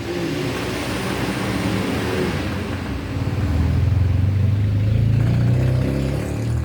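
A motor vehicle's engine running close by. It starts as a broad hiss, then a low engine drone grows louder from about three seconds in, with its pitch shifting slightly.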